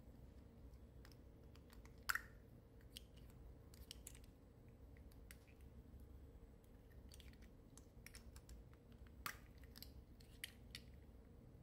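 Faint clicks and taps of small plastic lipstick tubes and caps being handled, with a sharper click about two seconds in and another about nine seconds in, over a faint steady hum.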